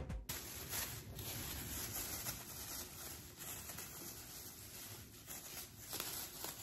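Faint crinkling and rubbing of thin clear plastic disposable gloves being pulled onto the hands, over a low, steady room hiss.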